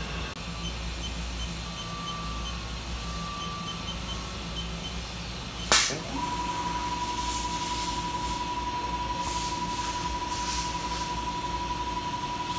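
Haas HRT-210 rotary table indexing: a sharp burst about six seconds in, then a steady motor whine as the table drives round, over the machining center's constant low hum.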